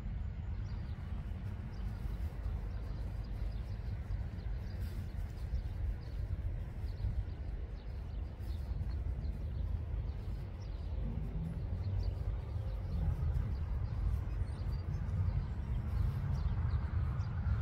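Outdoor spring ambience: a steady deep rumble, with faint, scattered bird chirps above it.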